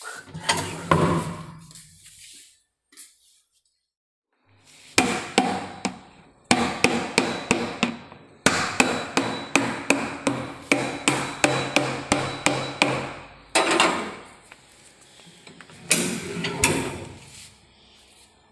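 Runs of sharp knocks and bangs, about two or three a second, from a 20-kilo plastic paint bucket being handled and loaded into the metal cabinet of a paint shaker machine; the shaker itself is not running.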